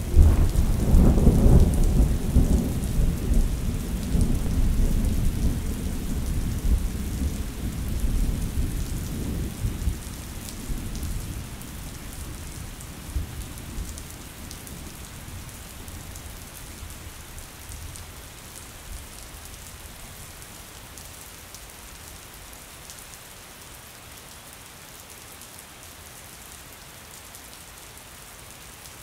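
Thunderstorm: a long, deep rumble of thunder, loudest in the first couple of seconds and fading away over about ten seconds, over steady rain that continues alone afterwards.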